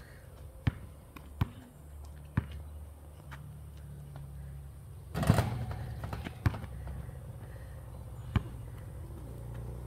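A basketball bouncing on an outdoor hard court, a few separate bounces spaced out, with one louder, longer hit about five seconds in, after a jump shot. A low steady rumble runs underneath.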